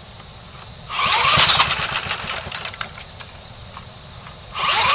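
A cordless drill spinning a lawnmower's small engine over from the top of the engine to crank it for starting. It comes in two bursts, one about a second in lasting about a second and a half and another starting near the end, each opening with a rising whine as the drill spins up.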